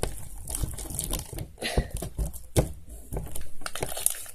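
Homemade borax-activated glue slime being kneaded and stretched by hand, making irregular sticky clicks and squelches as it firms up.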